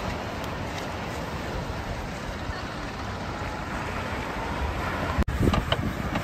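Steady wind rumbling on the microphone over the wash of the Gulf surf. Near the end come a few low thumps.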